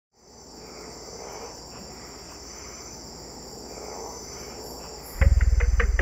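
Insect chorus: a steady high-pitched drone. About five seconds in, music enters with a deep bass and a fast ticking beat, louder than the insects.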